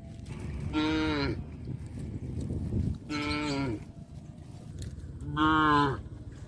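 Cows mooing: three separate calls a couple of seconds apart, each about half a second long and dropping in pitch at the end, over a low rumble.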